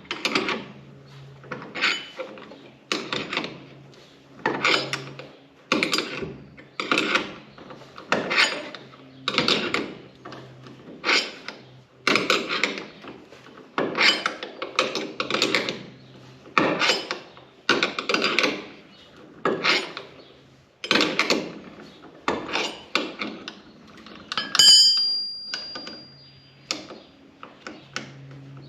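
Barn-door latch turnbuckle hardware being turned by hand, metal parts clinking and ratcheting in a steady rhythm of about one stroke a second. Near the end there is a short, high metallic squeak.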